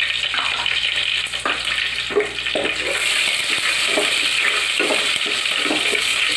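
Green chillies sizzling in hot oil in a pot, with a steady hiss. A wooden spatula stirring them scrapes and taps against the pot many times.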